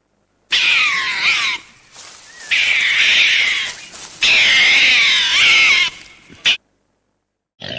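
Three loud animal calls, each a second or more long, with a wavering pitch that sweeps up and down; each one starts and stops abruptly.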